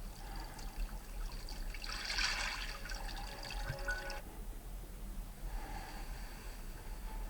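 A Vivo Y76 5G alarm tone made of water sounds: trickling, loudest from about two seconds in, stopping suddenly a little after four seconds, with fainter trickles before and after.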